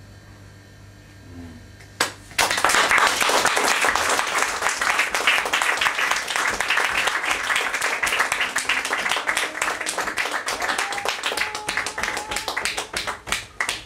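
A small audience applauding in a small room. It starts about two seconds in, after a faint electrical hum, and thins out near the end.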